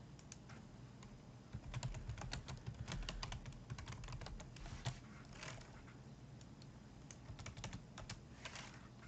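Typing on a computer keyboard: a quick run of keystrokes about one and a half seconds in, tapering to a few scattered key presses in the second half.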